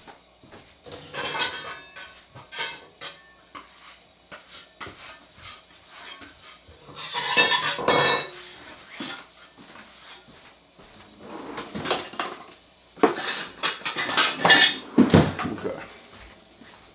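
Kitchen dishes and metal utensils clattering as they are handled, in several separate bursts with small clinks between; the loudest bursts come about halfway through and again near the end.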